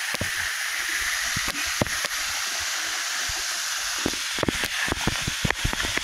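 Steady rushing hiss of a waterfall, with short knocks and crunches of footsteps on a leaf-littered rocky trail that come more often in the second half.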